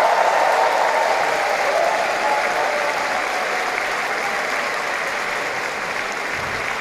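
Large audience of a few thousand applauding, the applause slowly dying down.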